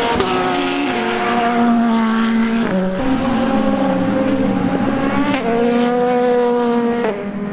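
Twin-turbo V8 race engines of BMW M Hybrid V8 GTP prototypes running at speed on track, a steady engine note that jumps abruptly in pitch a few times.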